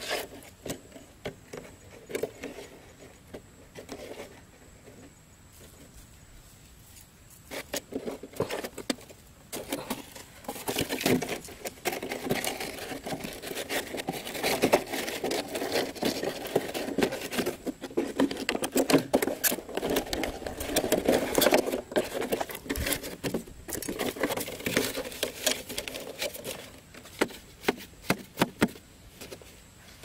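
Scissors cutting a clear plastic bottle, the plastic crackling and clicking as it is cut and handled. Sparse clicks at first, then dense crackling from about ten seconds in until near the end.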